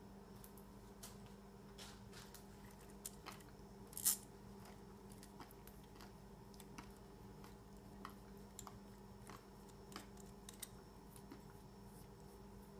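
Faint crinkling and scattered clicks of a paper napkin being rubbed over a small plastic wind-up toy, with one sharper click about four seconds in.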